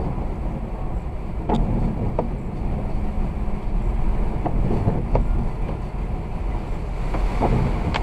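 A car driving on a snowy road: a steady rumble of road and tyre noise, with pairs of short knocks about every three seconds.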